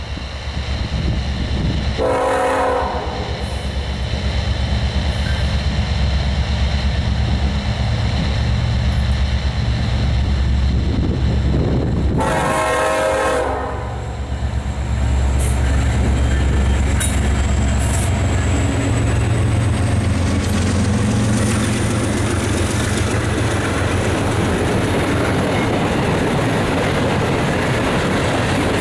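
Diesel locomotives of a freight train, an EMD SD70ACe and a GE ES40DC, rumbling past with the train rolling on the rails, and a K5LA five-chime air horn sounding two short blasts, about two seconds in and again about twelve seconds in. In the second half a faint high whine slowly rises in pitch over the rumble.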